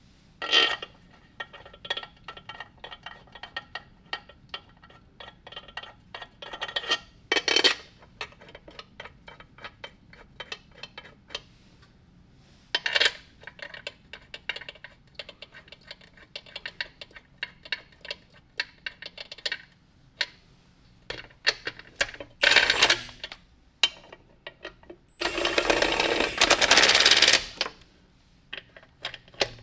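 Hand ratchet clicking in quick runs as bolts are run in, with sharp metallic clacks between runs. Near the end comes a louder rasping burst of about two seconds.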